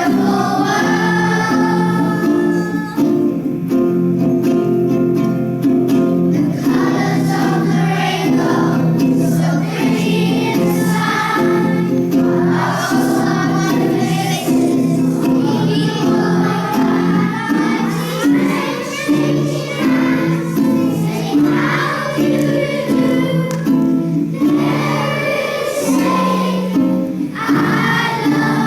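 Group of children singing together as a choir, a slow song over an accompaniment of long held chords.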